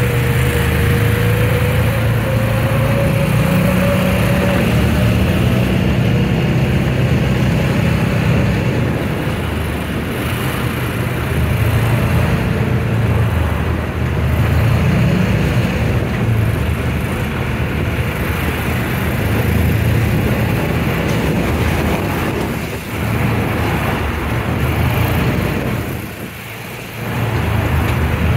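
Engine of an off-road side-by-side buggy running under way on a gravel road, heard from on board with steady road noise; its pitch rises and falls with the throttle and eases off briefly near the end before picking up again.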